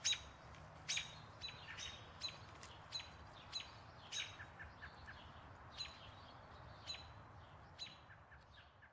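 Birds chirping: short, sharp chirps at irregular intervals, roughly two a second, over a faint steady background hiss.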